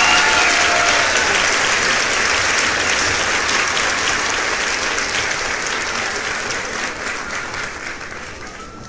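A group of people applauding, the clapping slowly dying away over the last few seconds.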